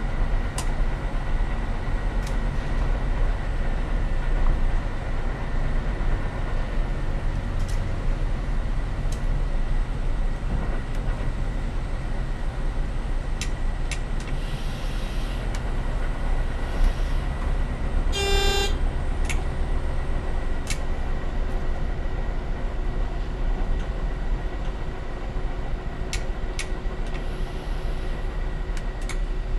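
Steady running noise of a diesel railcar heard from its cab, with scattered sharp clicks from the track. About two-thirds of the way through comes one short toot of the train's horn.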